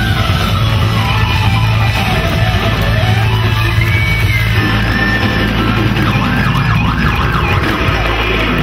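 Live rock band playing at full volume, with an electric guitar lead of gliding, wavering bent notes over bass and drums.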